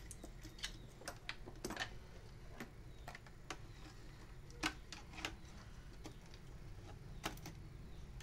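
Scattered light clicks and taps of hands handling plastic connectors and parts on a desktop motherboard, coming at uneven intervals, over a low steady hum.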